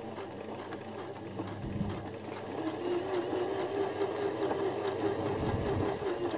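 Janome FD206 sewing machine stitching a blind hem, its needle and motor running steadily, growing louder about two and a half seconds in.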